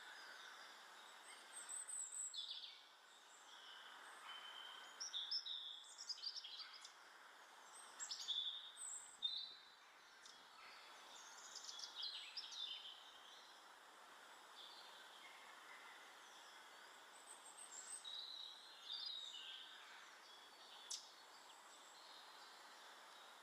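Birds chirping and calling in short bursts, over a faint steady hiss.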